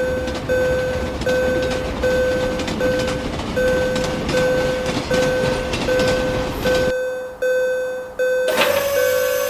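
Japanese level-crossing warning bell ringing its repeating "kan-kan" ding, a little more than one stroke a second, over a steady rushing noise that cuts off about seven seconds in. Near the end, after a click, the bell carries on at a slightly higher pitch.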